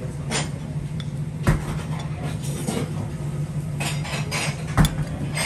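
Dishes and utensils knocking, with two sharp clacks about a second and a half in and near the end, over a steady low hum.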